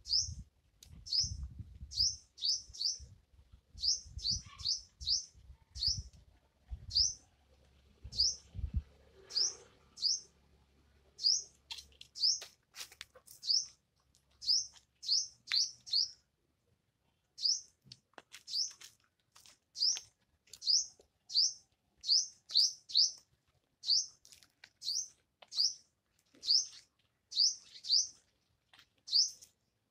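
A small bird chirping over and over: short, sharp, high chirps that dip in pitch, about one or two a second, with a short break around the sixteenth second. Low thumps sound under the chirps for the first nine seconds or so.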